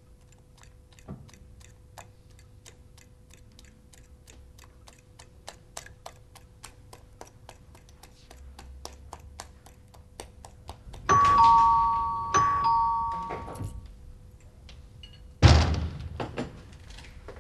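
Faint ticking, about three a second, then a two-tone ding-dong doorbell chime about eleven seconds in, struck again a second later, followed by a loud thump a few seconds after.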